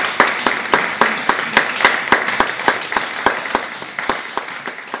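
Audience applauding, with loud, evenly timed claps about four a second standing out above the general clapping, slowly dying away.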